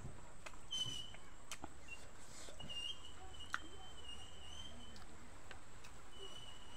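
Chewing and scattered mouth clicks of someone eating rice and beef by hand. A high, thin, slightly wavering call sounds in the background for a few seconds, then again near the end.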